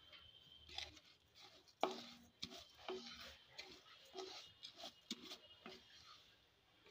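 Wooden spatula stirring raw gobindobhog rice, coated in ghee, around a metal kadai: faint, irregular scrapes and taps, the loudest about two seconds in.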